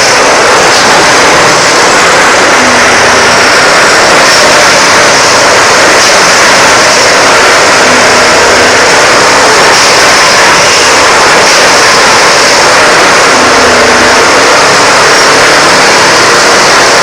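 Train running, a loud, steady rush of noise that neither rises nor falls.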